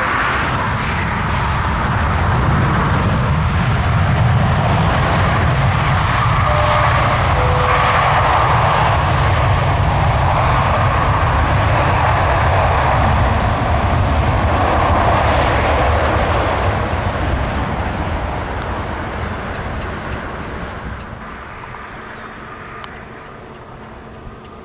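Jet airliner engines running loud and steady as the aircraft passes close by, then fading away over the last several seconds.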